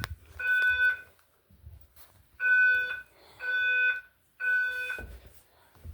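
Fire alarm speaker strobe sounding a temporal-three evacuation tone: steady beeps of one pitch, each about half a second long, in groups of three. One beep ends the previous group near the start, then after a pause of about a second and a half comes a full group of three.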